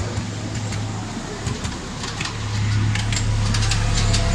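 Miniature railway train running, its wheels clicking over rail joints above a steady low rumble. The rumble grows louder and fuller about two and a half seconds in, as the train enters a tunnel.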